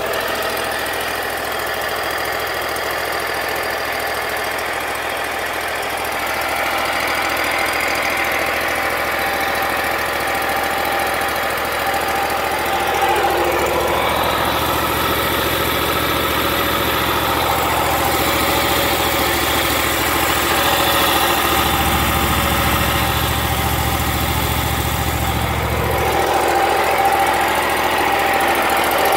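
2011 John Deere Z710A zero-turn mower's Kohler Command engine running steadily at idle; its tone shifts about halfway through and again near the end.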